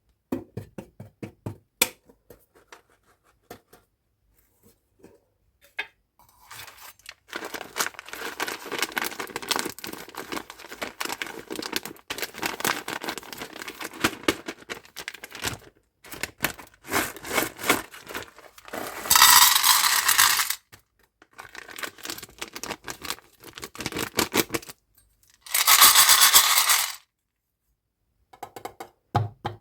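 Small hard-shelled candies such as M&Ms and Skittles clattering as they are handled and poured, with plastic packaging crinkling and tearing. Scattered clicks come first, then a long stretch of dense crackling, and two louder rushing noises of about a second and a half each come in the second half.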